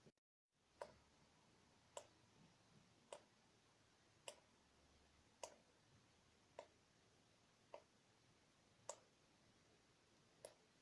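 Water dripping from a tap, single drops falling about once a second at an even pace, each a faint short drip with a brief ringing pitch.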